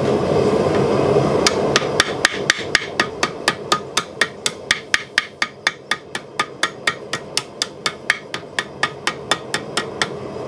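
Blacksmith's hammer striking a glowing-hot steel bottle-opener ring over the anvil horn in a fast, even rhythm of about four blows a second, starting about a second and a half in. The blows are evening out the thicker side of the ring to make it symmetrical. A steady rushing noise runs underneath.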